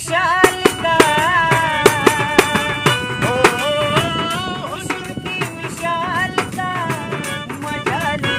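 Hindi film song music: a sliding, ornamented melody over a steady percussion beat.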